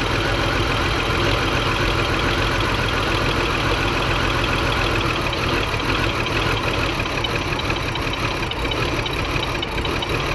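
2002 BMW X5's 3.0-litre inline-six idling steadily. The engine has a multiple misfire, and its fuel pressure reads low at idle, about 41 psi against the 50 it should hold.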